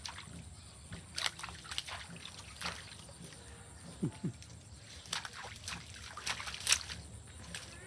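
A dog moving about in a shallow muddy puddle, the water splashing and sloshing around its legs in a run of irregular splashes.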